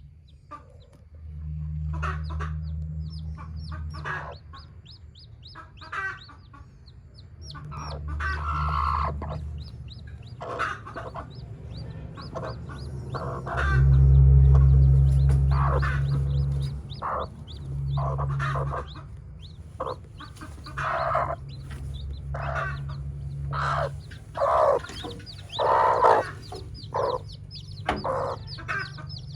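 A hen clucking in short repeated calls while chicks peep in quick, high runs. A low rumble comes and goes and is loudest about halfway through.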